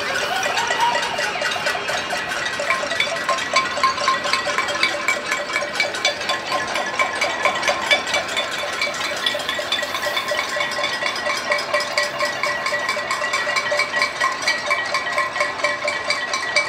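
Pots, pans and basins struck with spoons by many households at once: a dense, continuous metallic clanging with ringing pitches. This is a pot-banging protest.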